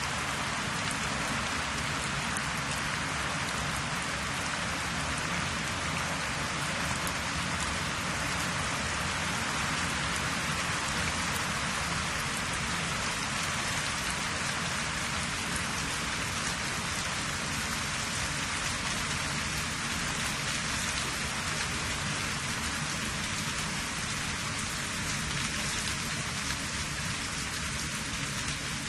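Steady rain-like noise: an even hiss with many fine ticks throughout.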